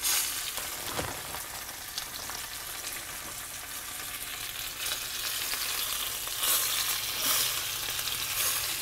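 Flour-dredged pieces of snapping turtle frying in hot oil in a cast iron skillet: a steady sizzle that flares up several times as more pieces are laid into the pan.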